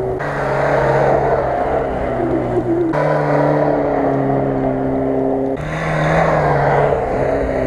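Background music with sustained low bass and synth notes that change abruptly about three and five and a half seconds in.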